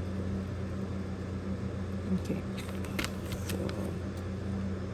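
Steady low background hum, with a few light clicks and taps in the middle from handling the humidifier's plastic parts.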